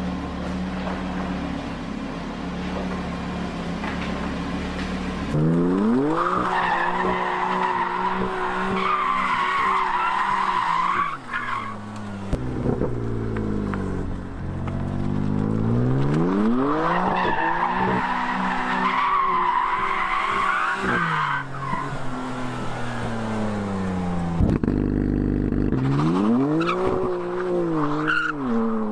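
A BMW M3's twin-turbo straight-six revving hard, its pitch rising and falling, while the rear tyres spin and squeal in three long bouts of wheelspin. Before the first bout, for about five seconds, another engine idles steadily.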